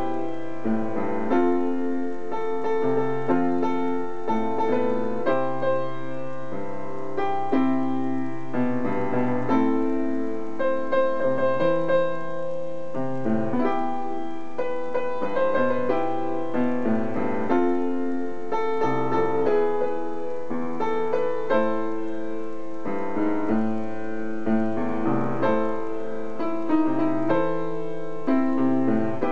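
Upright piano played solo, a pop song arranged for piano: held bass notes under chords and a right-hand melody, played without a break.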